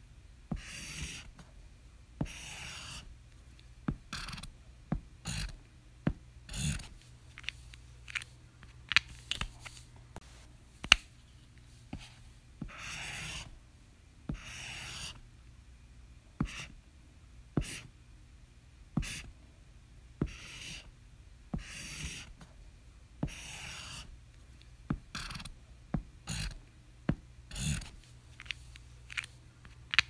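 Highlighter tip drawn across paper in repeated strokes lasting about half a second to a second each, mixed with many short sharp clicks, the loudest about eleven seconds in.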